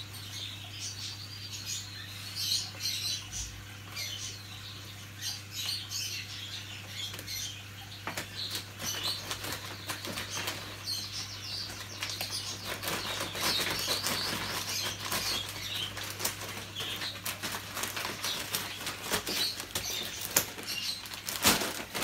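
Crinkling and rustling of a 20 kg paper-lined seed sack being handled and pulled open, densest and crackliest from about eight seconds in. Small birds chirp in the background, over a steady low electrical hum.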